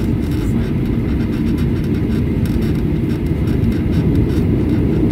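Cabin noise of a Boeing 737-800 rolling slowly on the runway before takeoff: a steady low rumble from its CFM56 jet engines and the wheels on the pavement, growing a little louder near the end.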